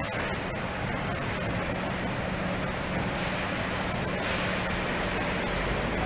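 Steady factory background noise with a constant low hum, a few faint clicks near the start.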